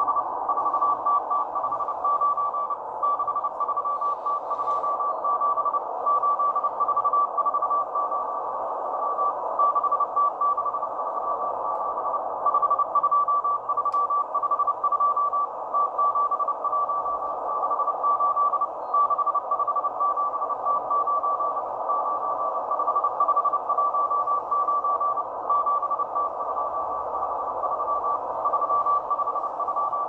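Morse code from the M12 Russian number station through a Tecsun PL-330 shortwave receiver's speaker in upper sideband: a tone of about 1 kHz keyed on and off in dots and dashes over steady band hiss. Its pitch differs from other receivers on the same signal, which the owner puts down to the PL-330 probably being a little off frequency.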